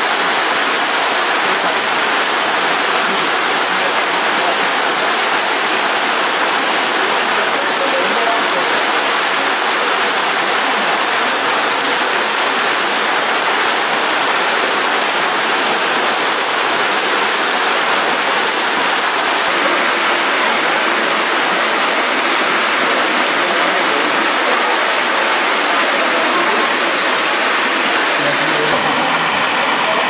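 Kozyrek waterfall on the Kobalar-Su river: a thin fall of water spilling over a rock ledge and splashing onto stone, a steady rushing hiss. The sound shifts slightly just before the end.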